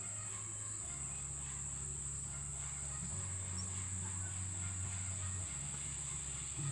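Insects chirring steadily in a high, unbroken drone, over background music with long held bass notes that change every couple of seconds.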